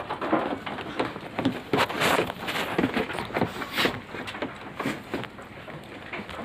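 Goats moving about in wooden-slatted pens: a busy run of irregular knocks, clatter and rustling, with two louder rustles, about two seconds in and just before four seconds.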